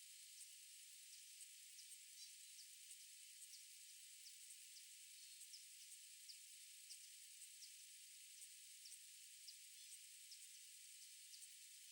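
Near silence: a faint, steady high hiss with light, irregular ticks, about one or two a second.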